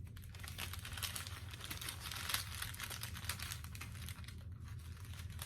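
Small plastic bags of diamond-painting drills crinkling and rustling as they are handled, a dense run of small crackles, over a low steady hum.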